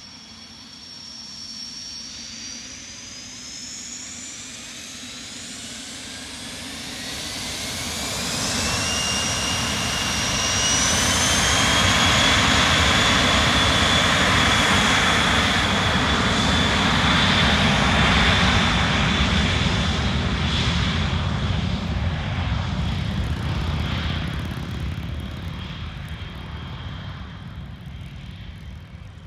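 Dassault Falcon 900EX's three Honeywell TFE731 turbofan engines spooling up for takeoff with a whine that rises in pitch, then a loud, steady jet roar as the jet accelerates down the runway, fading as it moves away near the end.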